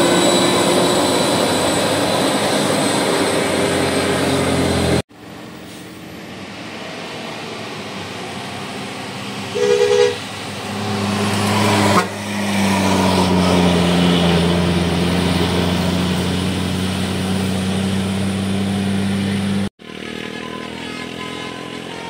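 Large tour-bus diesel engines pulling up a steep grade as coaches pass close by, with a brief horn blast about ten seconds in. The sound cuts off abruptly twice, about five seconds in and near the end.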